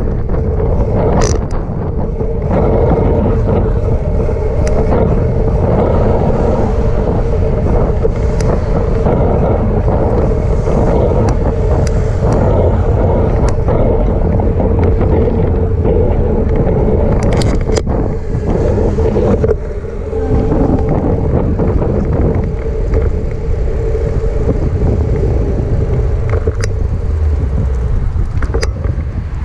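Wind buffeting the microphone of a camera on a moving bicycle: a steady low rumble with a steady hum under it and scattered sharp clicks and knocks from the bike over the path. The noise eases briefly about two-thirds of the way through.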